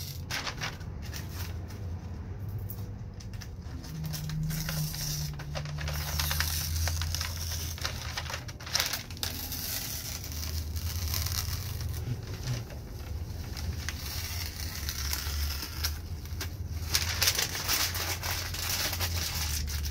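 Protective masking being peeled off a Lexan (polycarbonate) window pane, giving an irregular run of crackling and tearing over a steady low hum.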